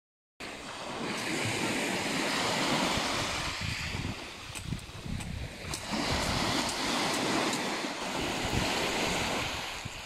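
Small sea waves washing up onto a sand-and-pebble beach and drawing back, in two surges a few seconds apart, with a few light clicks between them.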